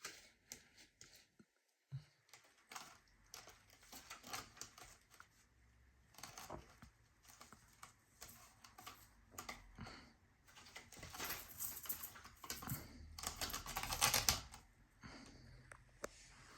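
A cat's claws scratching and scraping at a scratching post in irregular runs of quick clicks and scrapes. The scratching is busiest and loudest from about eleven to fourteen seconds in.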